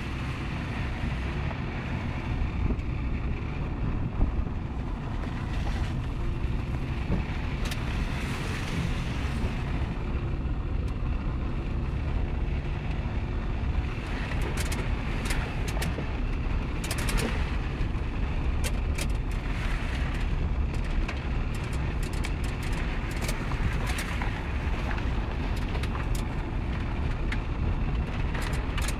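Suzuki Vitara being driven off-road: a steady low engine and driving rumble. Scattered sharp knocks and clatters come in through the second half.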